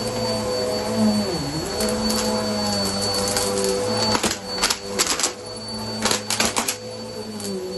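Vacuum cleaner running on a rug, a steady motor drone with a high whine whose pitch dips briefly about a second and a half in and again near the end. A cluster of sharp clicks and crackles comes from about four to seven seconds in.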